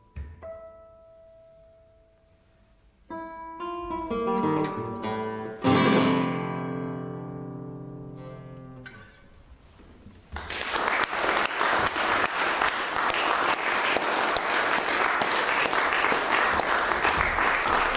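Classical guitar playing its closing bars: a few soft notes, a quick rising run, then a loud final chord about six seconds in that rings out and fades. Audience applause breaks out about ten seconds in and carries on steadily.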